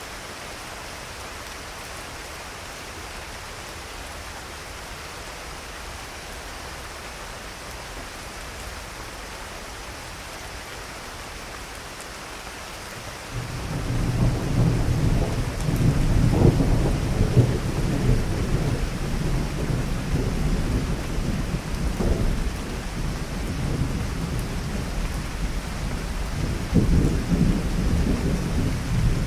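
Steady rain, then about halfway through a loud roll of thunder breaks in and keeps rumbling, with sharper cracks flaring within the rumble, over the rain.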